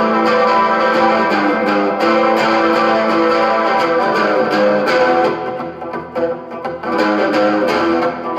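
Electric guitar strumming sustained chords through a 1960s Supro Super amp, the pick strokes coming in a steady rhythm.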